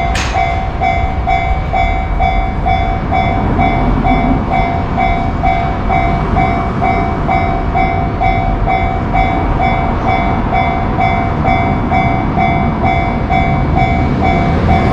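Japanese level-crossing warning bell ringing in steady pulses, about twice a second, over the continuous rumble and rail noise of a train passing the crossing.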